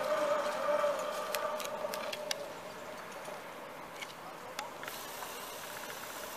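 Zipline trolley pulleys running along the steel cable with a steady whine that fades out about two seconds in. A few light clicks follow over a faint hiss.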